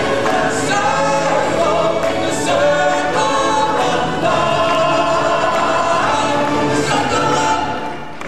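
A stage-show choir singing together with instrumental backing music.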